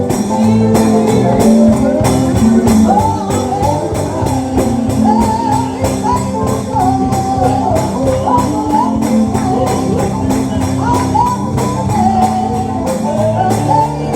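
Live gospel church music: a band with a tambourine shaking a steady, quick beat over a sustained bass, with a wavering melody line above.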